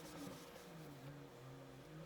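Faint scratching and scraping of kinetic sand being worked, strongest in the first half-second, over a faint low hum.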